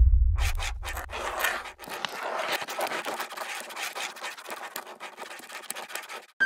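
Sketching sound effect: rapid, irregular scratchy strokes like a pencil drawing on paper, over a deep boom at the start that fades away within about two seconds.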